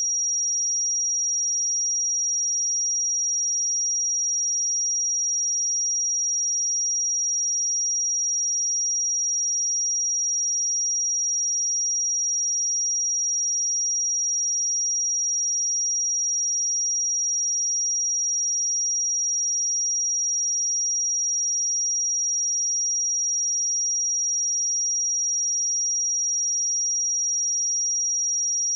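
A pure 5693 Hz sine-wave test tone, a single steady high-pitched whistle-like pitch held at constant level.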